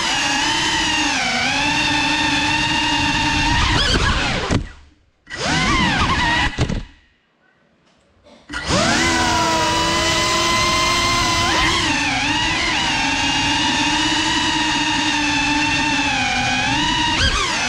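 GEPRC Cinelog 35 cinewhoop's brushless motors and ducted 3.5-inch propellers whining, the pitch rising and falling with the throttle. About four and a half seconds in the motors cut out, rev briefly, then fall nearly silent. They spool back up about eight and a half seconds in.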